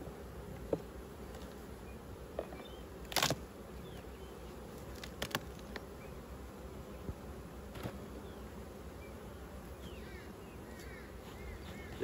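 Honeybees humming steadily from an open hive, with a few sharp knocks and clicks from the hive's wooden boxes being worked, the loudest about three seconds in.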